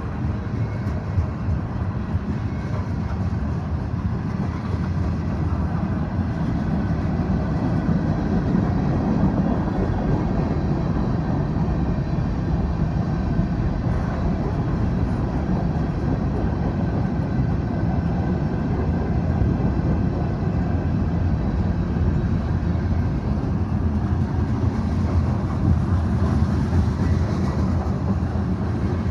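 Canadian Pacific mixed freight train rolling past, with a steady rumble of wheels on the rails.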